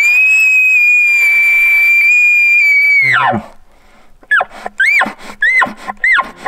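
Elk bugle tube blown to imitate a bull elk's bugle: a high whistle that glides up, holds steady for about three seconds, then slides down, followed about a second later by a run of short rising-and-falling chuckle notes, about two a second.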